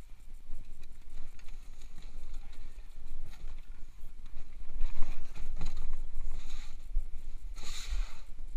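Cardboard box and plastic wrapping being handled as the mini dirt bike is pulled from its carton: scattered knocks and rustling scrapes, the loudest scrape near the end, over a steady low hum.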